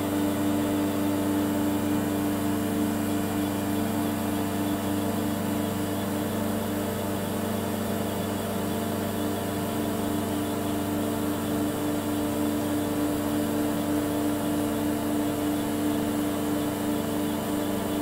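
Okuma MX-40HA horizontal machining center running: a steady mechanical hum made of several held tones, with no change in pitch or level.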